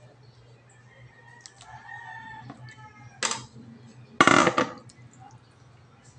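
A rooster crows once, faintly: a drawn-out call of about a second and a half beginning about a second and a half in. Then come two short, loud, noisy bursts of handling as the plastic bowl is moved at the sink; the second is the loudest.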